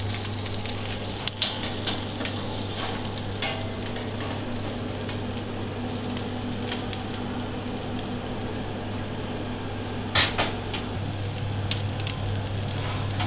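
Grouper fillet sizzling on the grate of a charcoal oven over glowing coals, with scattered small crackles over a steady low hum. A brief sharp knock sounds about ten seconds in.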